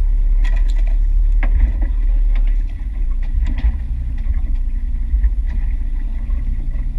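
Steady low rumble of a small aluminium fishing boat at sea, with a few short knocks and clicks on the boat in the first few seconds.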